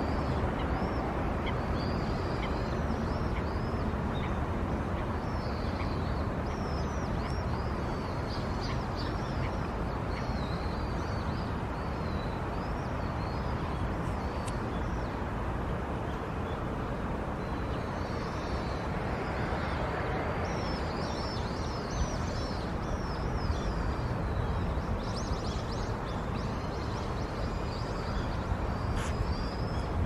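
Many short, high bird chirps in bouts over a steady low outdoor rumble, with a couple of brief clicks.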